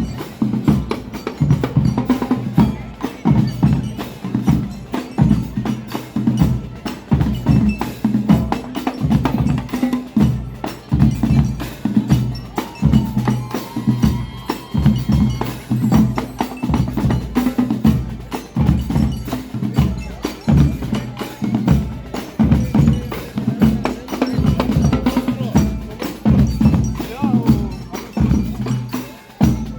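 Marching band percussion playing a steady, driving rhythm on bass and snare drums, with a few ringing pitched notes over it.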